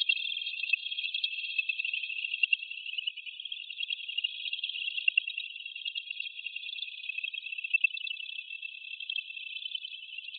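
Dense insect chorus, like crickets: a steady, high-pitched, fast-pulsing trill with nothing lower beneath it.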